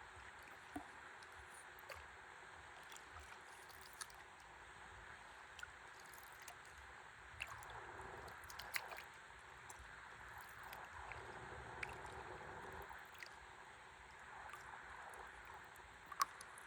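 Faint, steady river water sounds around a stand-up paddleboard, with a few small clicks and drips, swelling louder twice, about eight and eleven seconds in.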